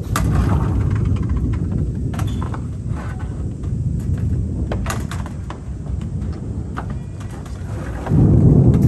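Thunder rumbling low and continuously, swelling into a louder rumble about eight seconds in, with scattered faint ticks over it.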